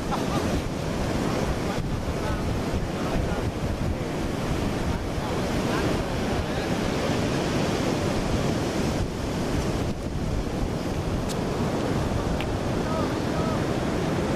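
Surf breaking on a beach, mixed with wind buffeting the microphone: a steady rushing noise.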